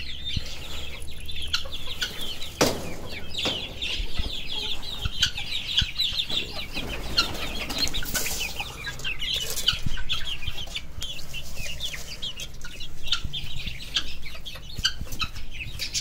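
Young chickens clucking and peeping rapidly as they crowd a feeder while it is being filled, with wings flapping among them. A single sharp knock about two and a half seconds in.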